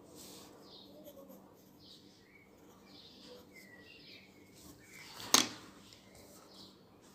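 Faint scratching of a graphite pencil on paper, with faint bird chirps in the background. About five seconds in comes a single sharp click: the pencil set down on the marble tabletop.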